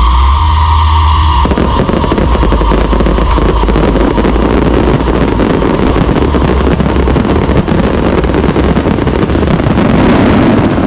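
A continuous barrage of fireworks and firecrackers, a dense, rapid crackle of small explosions that keeps going without a break. A steady high tone sounds over it for the first second and a half.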